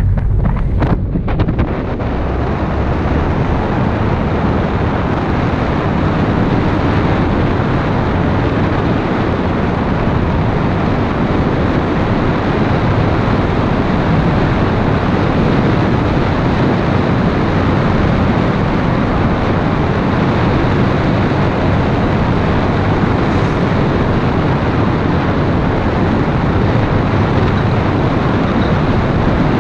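Wind rushing over a microphone on the outside of a moving Toyota MR2 mk2, with road noise beneath it. It buffets for the first second or so, then settles into a steady rush.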